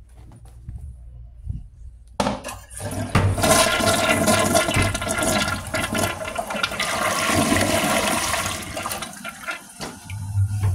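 2000s American Standard Cadet toilet flushing. A sudden rush of water starts about two seconds in, the bowl swirls loudly for several seconds, then the flow eases off near the end.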